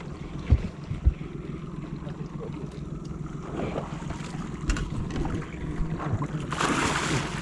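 Wind rumbling on the microphone, with a few sharp knocks in the first second, then a short loud splash about six and a half seconds in as the hooked lukanani (peacock bass) thrashes beside the boat.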